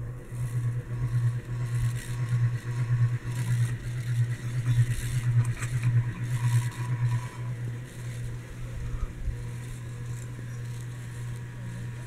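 GEV ceiling fan running, its motor giving a steady low hum heard close to the motor housing. The hum pulses about twice a second for the first several seconds, then evens out.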